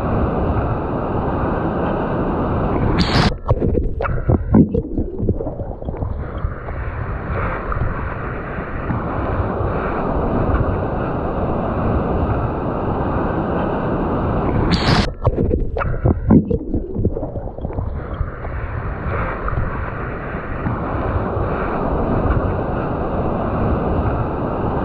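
Water and wind rushing steadily on a GoPro Hero 7 Black's built-in microphone in the surf. Twice, about 3 and 15 seconds in, a sudden splash breaks in, and the sound turns muffled for a few seconds before the open rushing returns.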